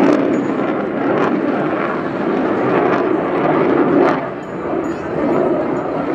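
Loud, steady jet noise from a Belgian F-16 fighter's Pratt & Whitney F100 turbofan engine in display flight, easing slightly about two thirds of the way through.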